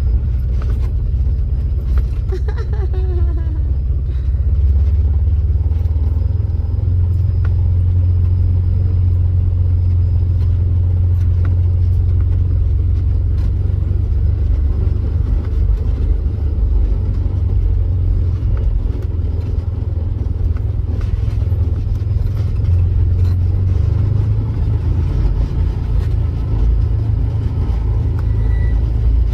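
Steady low rumble of a car running on the road, heard from inside, with a short falling call about two to three seconds in.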